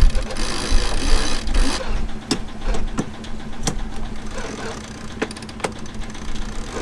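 Wind buffets the microphone for the first couple of seconds. Then come a few sharp clicks from a sailboat's sheet winch as the genoa is let out and trimmed, spaced under a second apart, with two more later. A steady low hum runs underneath.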